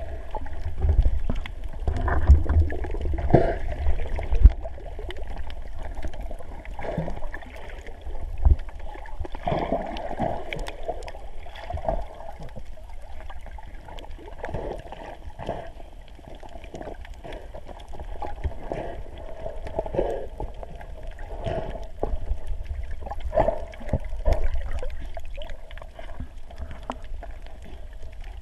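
Muffled underwater sound heard through a GoPro's waterproof housing: water swishing and gurgling with a low rumble, broken by many small clicks and knocks.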